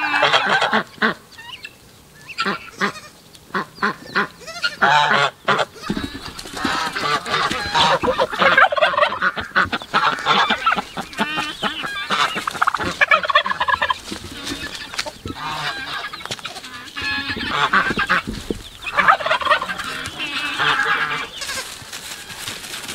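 Domestic geese honking over and over, mixed with other poultry calls.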